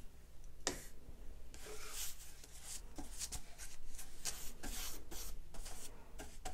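Synthetic paintbrush stroking chalk paint onto a pine drawer front: a quick run of soft, scratchy brush strokes, about two a second.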